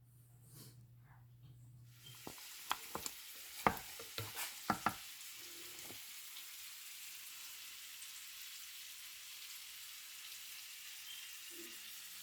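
Food frying in a pan with a steady sizzle that starts about two seconds in, with a few sharp clicks and knocks in the first seconds of it, like a utensil working the pan.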